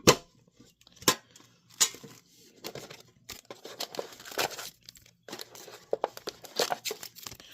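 Plastic wrapping torn and crinkled while a sealed Yu-Gi-Oh trading card tin is opened, with sharp snaps and clicks scattered throughout; the loudest snap comes at the very start and another about a second in.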